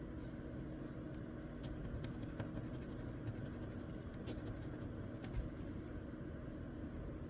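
Faint scratching of a crossword scratch-off lottery ticket, its coating rubbed off in quick short strokes, over a steady low hum.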